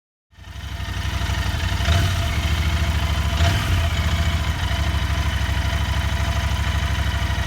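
Royal Enfield Interceptor 650's parallel-twin engine idling with an even low pulse, starting suddenly, with two brief louder swells about two and three and a half seconds in.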